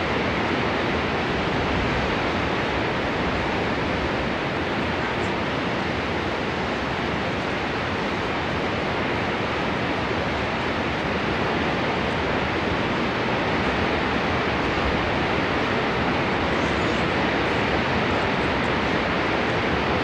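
Niagara Falls: a huge waterfall's water pouring down in a steady, unbroken rush that holds an even level throughout.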